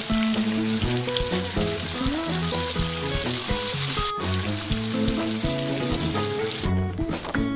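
Bacon frying in oil in a nonstick pan, a steady sizzle that breaks off briefly about four seconds in and stops near the end. Background music plays throughout.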